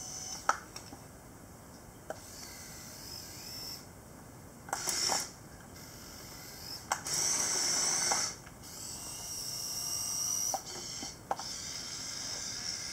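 Small electric gear motors of a Kyosho radio-controlled toy Komatsu excavator whirring in several short runs as the boom and arm move, with a few sharp plastic clicks; the last run of whirring carries on to the end.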